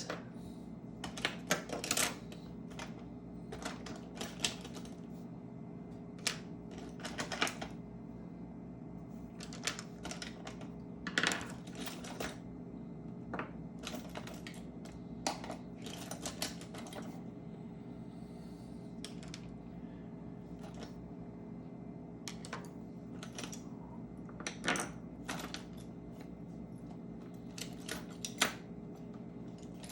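Irregular light clicks and taps of small precision screwdrivers and tools being handled and picked through, some in quick pairs, over a steady low hum.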